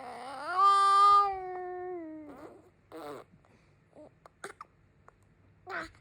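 Baby vocalizing: one long, loud, drawn-out wail-like call lasting about two seconds that rises, holds and falls away. It is followed by a few short vocal sounds and faint clicks.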